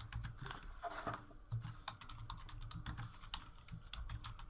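Typing on a computer keyboard: a quick, uneven run of keystrokes.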